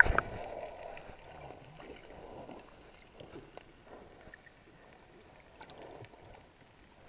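Muffled underwater sound picked up by a GoPro held under a lake's surface: a soft wash of moving water in the first second that fades away, then faint scattered clicks and small taps.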